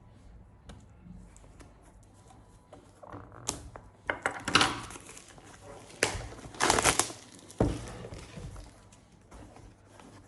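Packaging crinkling and rustling as a camera gimbal is unpacked by hand, in several bursts, loudest about halfway through.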